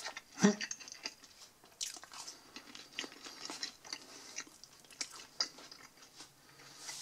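A person chewing and biting pizza crust dipped in barbecue sauce, with scattered small clicks and crackles. There is one short loud thump about half a second in.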